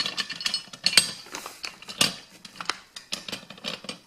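Carriage bolts and small metal hardware clinking and tapping against the metal end bracket and rails of a Granberg Alaskan chainsaw mill as the bolts are slid into place: an irregular string of sharp metallic clicks.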